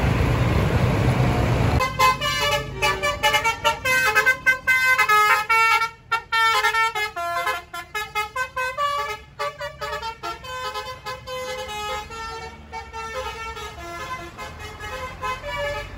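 Basuri telolet horn on a tour bus playing a melody of quick, stepping horn notes. It starts about two seconds in, after a loud noisy rumble, and grows fainter toward the end.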